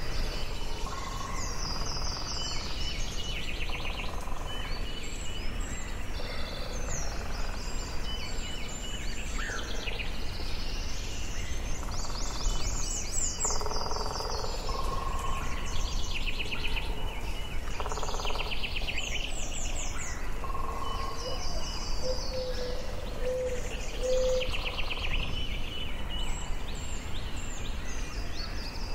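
Forest birdsong: several birds singing overlapping phrases of fast trills and whistles, over a steady low background rumble.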